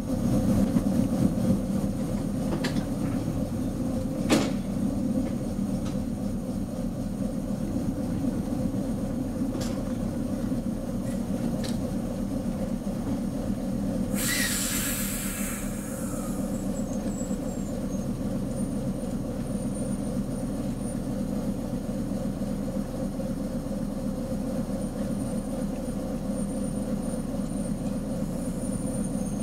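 Diesel shunting locomotive engine running steadily, heard from the cab while the locomotive creeps along the yard track. There are a few sharp clicks in the first dozen seconds and a short hiss lasting about two seconds about halfway through.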